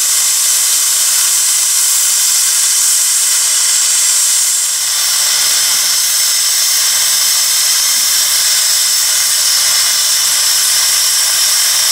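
A 1915 12-ton steam roller venting steam with a loud, steady hiss.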